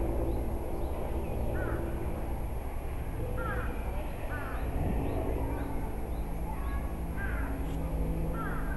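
Birds calling: short falling calls repeated every second or so, with fainter high chirps, over a steady low rumble.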